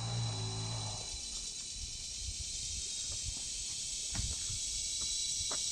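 Steady high-pitched chorus of insects chirring in the surrounding farmland, with a low hum for about the first second and a few faint ticks later.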